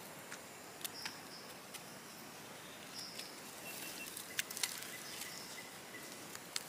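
Quiet forest ambience: a faint steady hiss with a few short, high chirps, a couple of fainter whistled notes and scattered small clicks.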